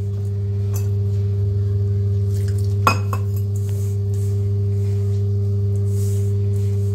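A steady low hum of several held tones, with a single clink of a hand or fingers against a steel mixing bowl about three seconds in while dough is kneaded by hand.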